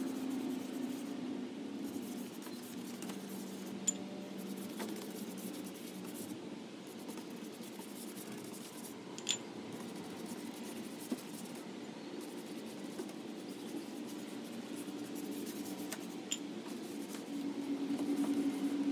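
Paintbrush scrubbing white paint across wooden dresser drawer fronts: a steady scratchy brushing with a few light clicks. A steady low hum sits underneath and grows stronger near the end.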